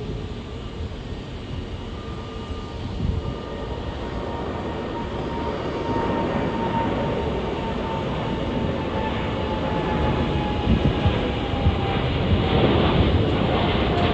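Boeing 787 Dreamliner's twin GEnx turbofan engines at takeoff power as the airliner lifts off and climbs out: a steady jet rumble growing louder, with a whine that slowly falls in pitch.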